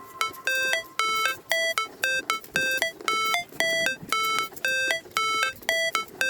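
Background music: an electronic melody of short, repeated pitched notes, about two a second, with no drums, bass or vocals.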